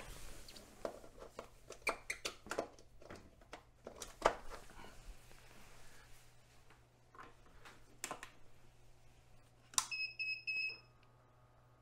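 Scattered clicks and knocks of parts being handled, then a click and a short run of electronic beeps from an electric rotating photo turntable being switched on, followed by a faint steady hum of its motor turning the platter.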